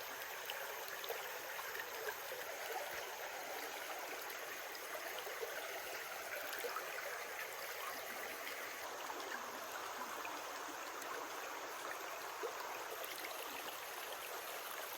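Small creek babbling and trickling steadily over its bed.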